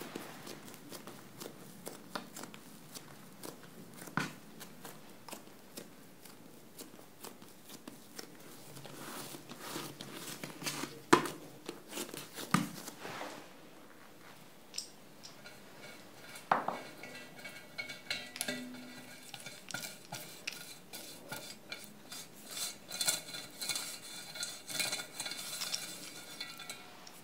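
Hands pressing and rolling soft dough on a countertop, with scattered soft taps and clicks and a sharp knock near the middle. From about halfway, a pastry brush scrapes around the inside of a metal gugelhupf pan, the bristles ticking densely and the pan ringing faintly.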